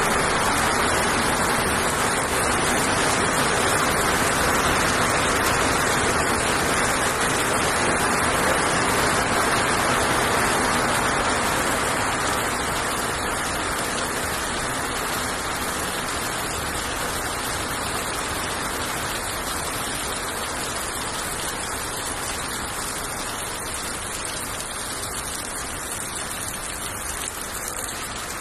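Rain falling steadily on a grass field, a continuous hiss of drops that eases a little in loudness about halfway through.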